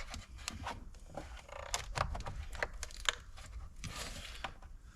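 A run of small plastic clicks and rattles: a wiring harness connector on the engine control module being worked at by hand and refusing to release.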